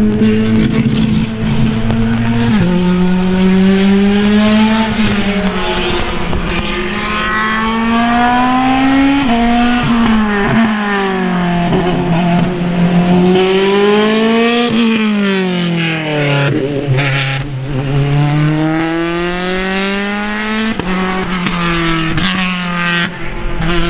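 Open-wheel single-seater race car engine revving through a slalom run. Its note climbs with each burst of acceleration and drops quickly at lifts and gear changes, several times over, then holds steady near the end.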